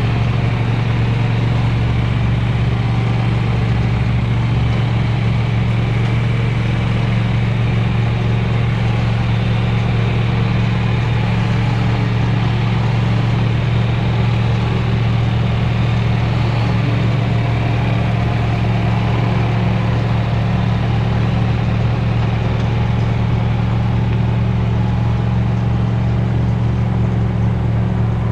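A motor running steadily at a constant speed, giving a loud, even low hum.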